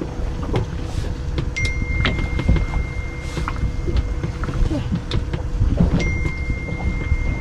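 Open-deck boat ambience: a low rumble of wind and water with a steady hum and scattered knocks on the deck. A long high electronic beep sounds twice, each about two seconds, once near the middle and again near the end.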